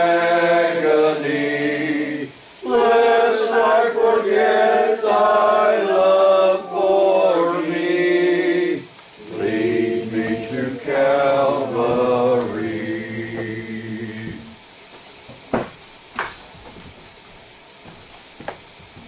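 Congregation singing a hymn a cappella, several voices together, closing on a held final chord about fourteen seconds in. A couple of faint knocks follow.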